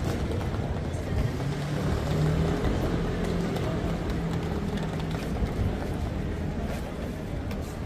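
Busy pedestrian street ambience: a steady low rumble under a faint murmur of passers-by and scattered footsteps.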